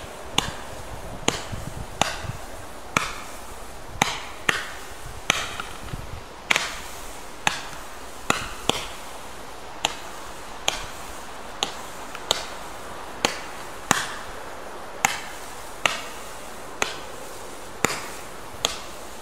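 Dragon Fireworks "Rigel" Roman candle battery firing shot after shot, about one a second at an uneven pace. Each shot is a sharp thump with a brief hiss trailing off after it.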